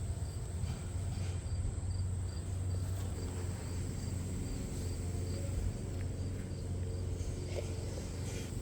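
Insects chirping outdoors in a regular, evenly spaced pulse, over a steady low rumble.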